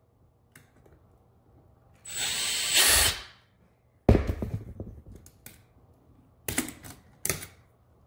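Makita cordless drill run in reverse for about a second, backing out a terminal screw on an electrical outlet, with a high motor whine. A sharp click and light rattling follow as the outlet and screw are handled, and two short scraping knocks come near the end.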